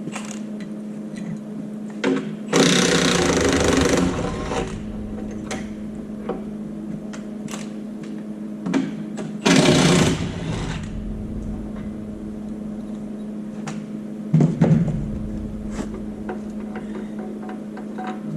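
Cordless impact wrench hammering in three bursts while loosening bolts. The first burst lasts about a second and a half and the later two are shorter.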